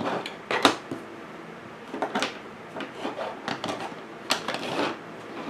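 Several short clicks, knocks and scrapes of craft supplies being handled and set down on a work table, a few per second at most, spread irregularly.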